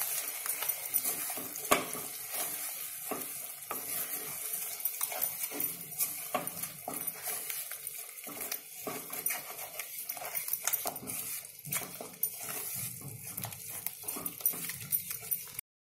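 Thick masala paste sizzling in oil in a kadai while a wooden spatula stirs and scrapes through it with irregular soft knocks. The paste is being fried on a low flame until the oil separates.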